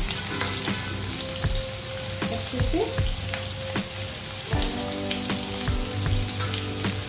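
Chopped onion sizzling as it drops into hot oil in a nonstick kadai, with sharp knocks and scrapes of a steel bowl and spatula against the pan.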